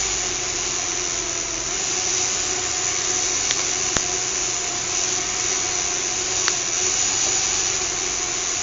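Small fischertechnik electric motor running steadily, a constant whine over a hiss, with a few sharp clicks around the middle.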